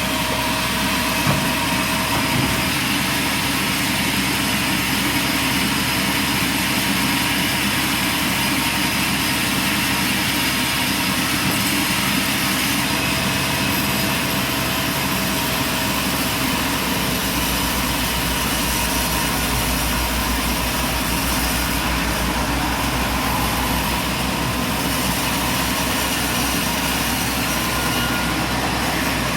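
Sawmill machinery running with a steady, loud mechanical drone. A deeper hum joins a little past halfway and fades again near the end.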